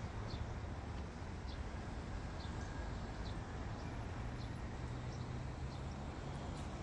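Open-air city ambience: a steady low rumble with small birds chirping briefly every half second or so.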